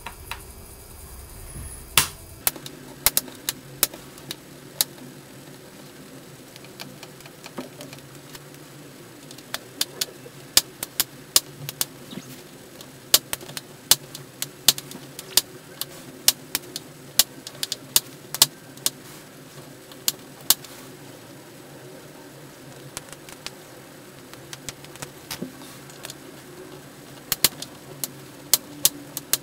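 Small screwdriver working the screws out of a MacBook Pro's aluminium bottom case: many irregular sharp metal clicks and ticks as the tip engages and turns the screws, loudest in a busy stretch in the middle, over a steady faint low hum.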